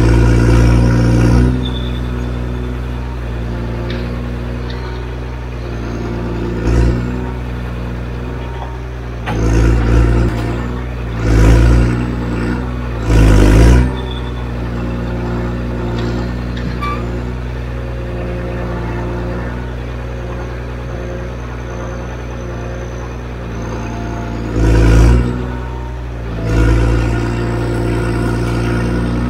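Diesel engine of a forestry machine running steadily. It revs up in short swells of about a second, several times: once at the start, three times about a third of the way in, and twice near the end.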